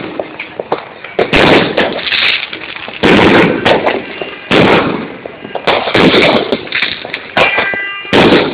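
Aerial fireworks exploding: a run of loud bangs, one every second or two, with crackling in between.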